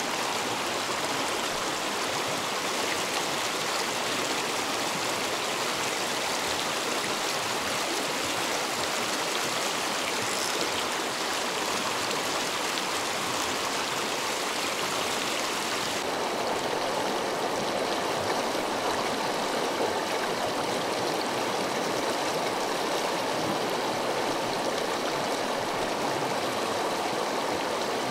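Mountain river rushing over rocks: a steady, unbroken rush of water. The rush turns duller, with less hiss, about halfway through.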